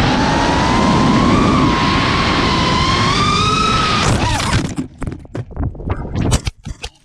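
FPV racing drone's brushless motors and propellers whining, the pitch rising slowly, with heavy air rush on the onboard camera. About four seconds in, a sudden hit, then a string of sharp knocks and scrapes as the drone crashes and tumbles.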